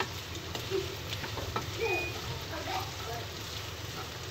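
Chopped almonds, raisins and other dry fruits sizzling lightly in ghee in a non-stick wok, stirred and scraped with a wooden spatula, with scattered light clicks of the nuts against the pan.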